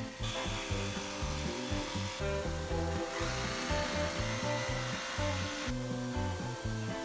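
Cordless Makita 18V power saw cutting through the edge of a wooden cabinet opening: a rasping, gritty sawing noise that starts just after the beginning, gets louder in the middle and stops about two-thirds of the way in. Background music with a repeating bass line plays underneath.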